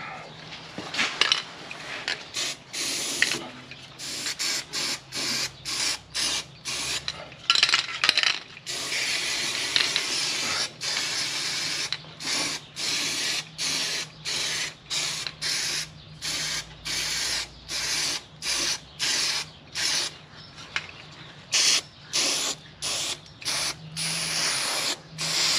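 Aerosol spray can spraying in a long run of short hissing bursts with brief gaps, about one or two a second, and a few longer passes of a few seconds each.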